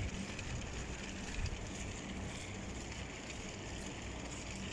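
Steady outdoor street noise while walking with a phone, with a faint low hum and a couple of dull thumps near the start and about a second and a half in.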